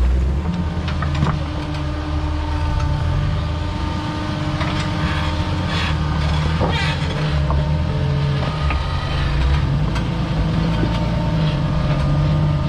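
Jeep Wrangler engine running at low revs while crawling off-road, its pitch shifting now and then, with scattered knocks and clicks.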